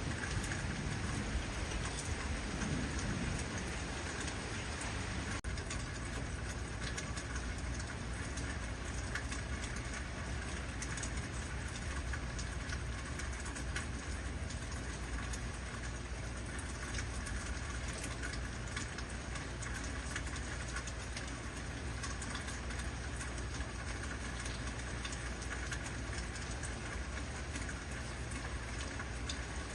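Heavy rain falling steadily in a dense patter of drops, with a low rumble of thunder dying away in the first few seconds.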